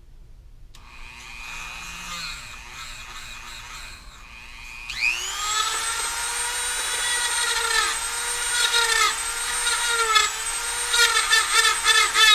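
Dremel rotary tool grinding out the hole in a plastic airsoft piston: a low steady hum at first, then about five seconds in it spins up to a loud, steady high whine. The pitch sags briefly several times as the bit bites into the plastic.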